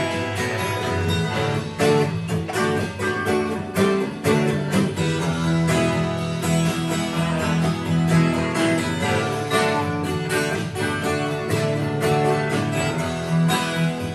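Acoustic guitar strummed in a steady rhythm, part of a fuller music mix.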